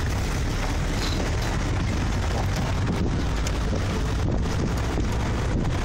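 Wind buffeting the microphone over the steady low rumble of a vehicle moving along a dirt track.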